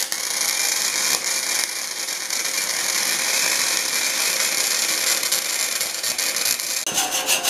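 Gasless flux-core wire welder (Forney Easy Weld 140 FC-i) arc sizzling steadily as a bead is run on steel bar. It strikes suddenly at the start and cuts off about seven seconds in, followed by a few short sputters.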